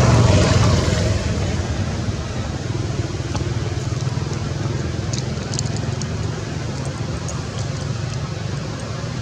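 Steady low engine rumble of a motor vehicle, loudest in the first second and then easing to a lower, even level. A few faint, short high ticks sound over it.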